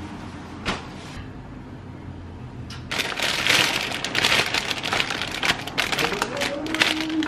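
Dense crackling and rustling of packaging being handled, starting about three seconds in after a steady low hum and a single click.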